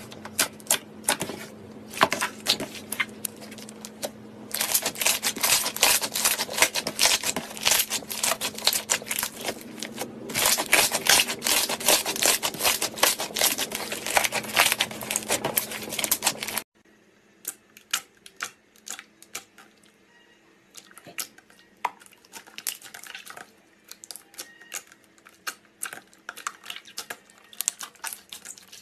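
Hands pressing, squishing and stretching slime, a rapid stream of sticky clicks and crackles. It stops abruptly about two-thirds through, and after that the clicks come quieter and sparser.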